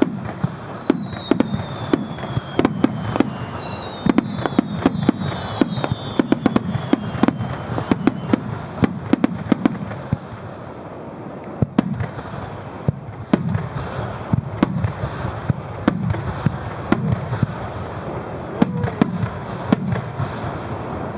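Fireworks display: aerial shells bursting in rapid, dense succession, each bang trailing off in a low rumble, with a few high falling whistles in the first few seconds.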